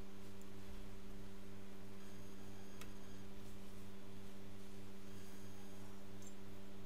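Steady low electrical hum, a few pitches held together over a pulsing mains buzz, with a faint click near the middle.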